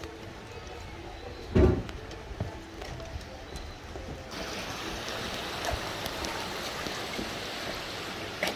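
Footsteps of a person and a leashed dog going down wooden steps, with light scattered knocks and one loud thump about one and a half seconds in. A steady rushing hiss sets in about four seconds in.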